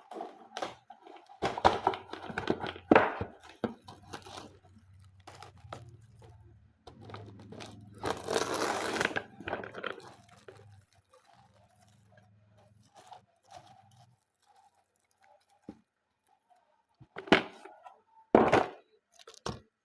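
Kitchen handling while a bowl of meatball mixture is being covered: rustling, tearing and crinkling, with one longer rustle about eight seconds in, and a few sharp knocks, two of them near the end.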